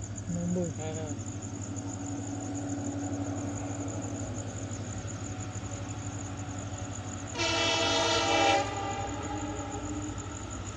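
WDP4 diesel locomotive's horn sounding one blast of a little over a second as the train approaches, over a steady low hum and chirping crickets.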